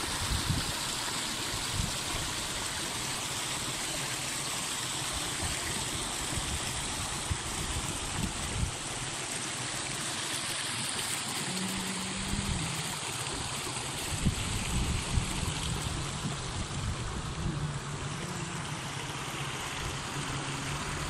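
Shallow mountain stream rushing and splashing over rocks, a steady rushing noise. A faint low steady hum joins about halfway through, and there are occasional low thumps on the microphone.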